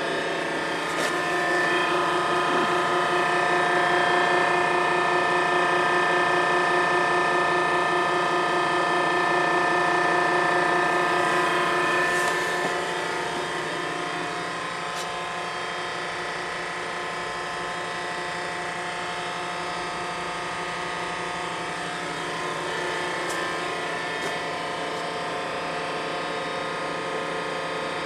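Hose crimper's Enerpac electric hydraulic power unit running steadily, a hum with a mix of steady whining tones. It drops in level about twelve seconds in and runs on more quietly, with a few faint clicks.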